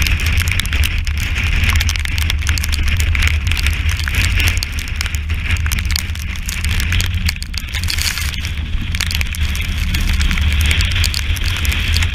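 Strong wind buffeting the microphone with a steady deep rumble, over an even hiss of wind and sea, while spray spatters onto the yacht's deck and the camera in many sharp pattering hits.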